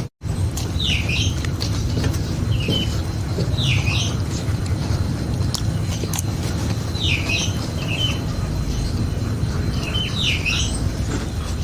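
Short bird chirps, each a quick dip and rise in pitch, repeating every second or few, over a steady low rumble.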